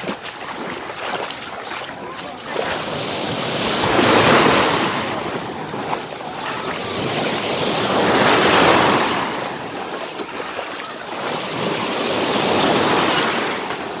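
Small Black Sea waves breaking and washing up a sandy shore. The surf swells three times, about four seconds apart.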